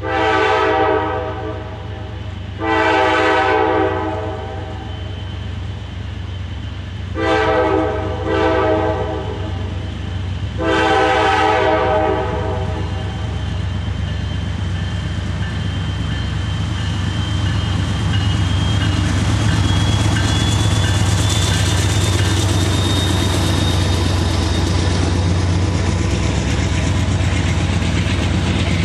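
Freight diesel locomotive's air horn sounding a chord of several tones at a grade crossing: two long blasts, two short and a final long one. Then the locomotives pass close by with a growing engine rumble and a faint rising whine, and the freight cars start rolling past.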